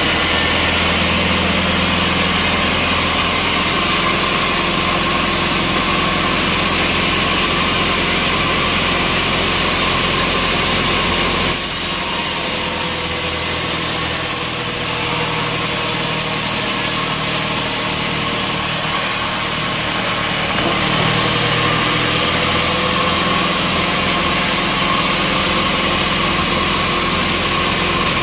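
Sawmill machinery running steadily under engine power, a loud continuous mechanical hum; the sound shifts about twelve seconds in and again about nine seconds later.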